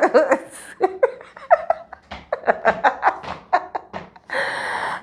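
A person laughing hard in a quick run of short bursts for about four seconds, then a long breathy wheeze near the end.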